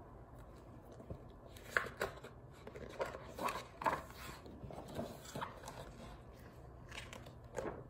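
Hardcover picture book being opened and its pages turned: a scattering of soft, brief paper rustles and taps.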